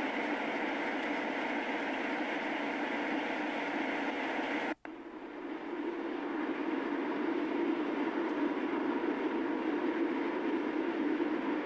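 Steady rumble of a train, cut off abruptly for a moment about five seconds in, then fading back up and running on.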